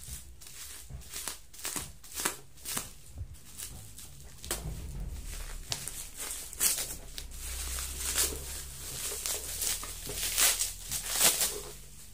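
Plastic bubble-wrap packaging crinkling and crackling as it is cut open with a small blade and pulled apart: irregular sharp rustles, thicker and louder in the second half.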